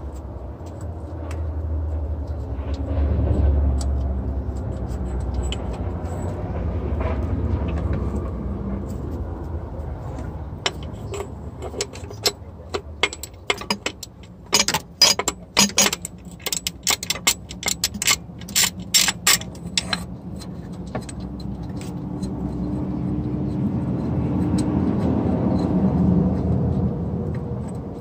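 Low vehicle rumble that swells and fades twice, with a run of sharp, irregular clicks and clinks in the middle.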